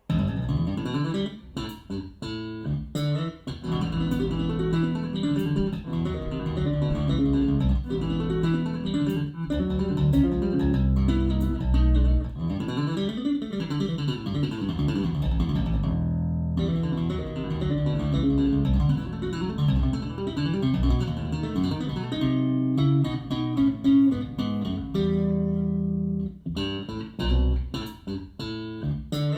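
Bass-heavy music with plucked guitar and bass guitar, played back in a room through a hi-fi system with a REL T9x subwoofer set on a plinth. There is a brief drop in the music about sixteen seconds in.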